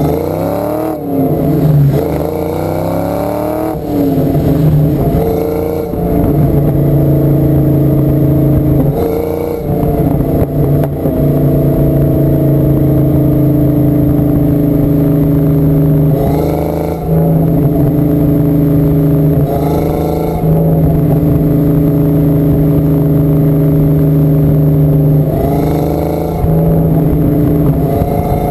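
1992 Ford Mustang GT's 5.0-litre V8 with headers and a Flowmaster exhaust, revved up and down over the first few seconds, then idling steadily with four short throttle blips.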